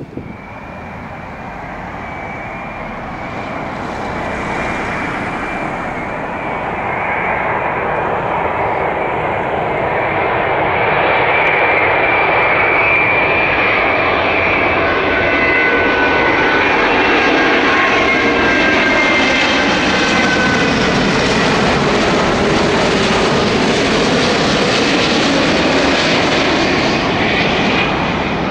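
Airbus A330-900neo jet landing, its Rolls-Royce Trent 7000 turbofans growing louder over the first ten seconds and then holding steady. A high fan whine sits over the jet noise, and its tones slide down in pitch as the plane passes, easing off slightly near the end.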